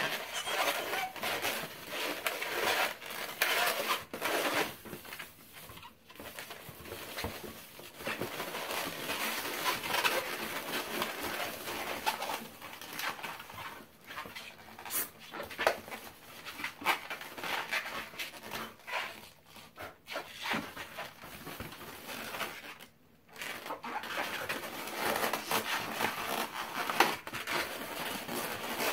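Long latex twisting balloons being twisted and locked together by hand, squeaking and rubbing against each other in an irregular stream of short squeaks.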